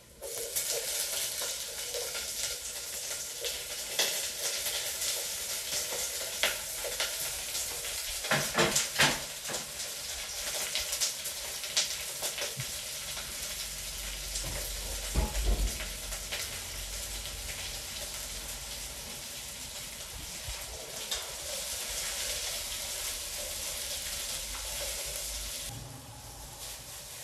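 Vegetables frying in hot oil in a small camping pot: a steady sizzle that starts suddenly and drops away near the end, with occasional knocks and clinks.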